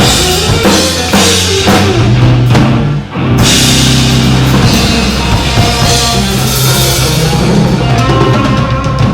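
Live band playing rock music, with the drum kit to the fore over steady bass notes; the sound breaks off briefly about three seconds in, then the full band comes back in.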